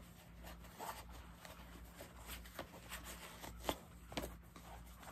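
Soft rustling and scattered light clicks of a fabric tablet sleeve and its packaging being handled, with the sharpest click a little before the four-second mark.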